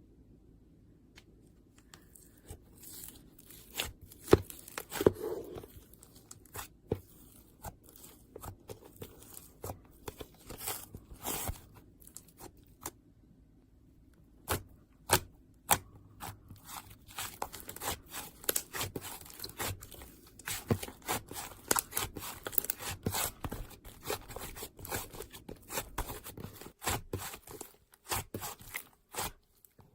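Irregular sharp clicks, scrapes and rustling, like something being handled and torn or crinkled, sparse at first and coming thick and fast in the second half.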